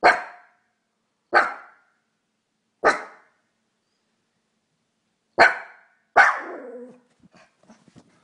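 Fox barking: five short, sharp barks. The first three come evenly, about a second and a half apart; after a pause, two more follow close together, the last trailing off longer. Faint scattered ticks and rustles follow near the end.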